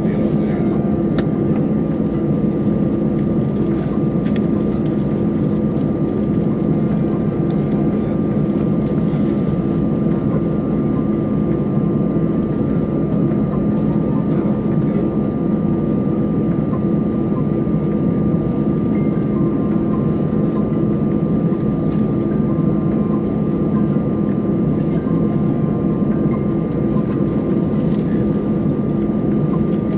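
Steady cabin drone of an Airbus A320 on the ground with its jet engines running: a low hum with a thin steady whine above it.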